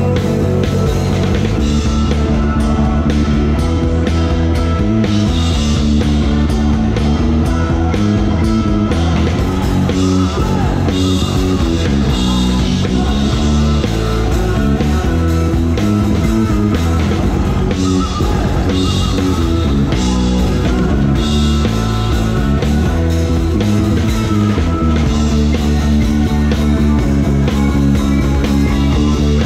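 Live rock band playing a song, with the drum kit heard close up and electric guitar over it, at a steady full level.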